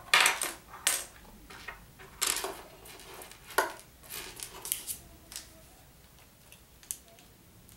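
Loose plastic Lego pieces clattering and clicking as they are rummaged through and pushed across a tabletop, in a string of short bursts that are busiest in the first four seconds and thin out after.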